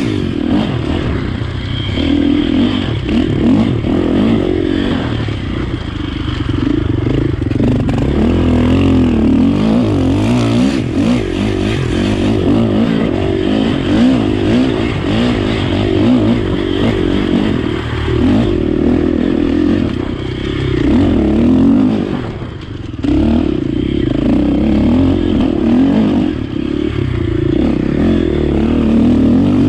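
Enduro dirt bike engine revving hard and easing off over and over as it is ridden at racing pace, with a short lull in the throttle about three quarters of the way through.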